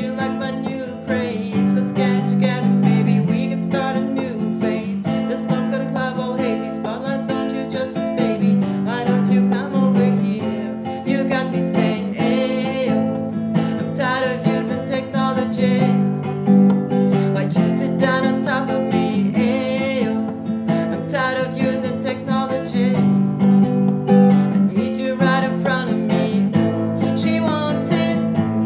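Acoustic guitar strummed steadily, with a voice singing over it. The sound is thin and boxy from a webcam microphone.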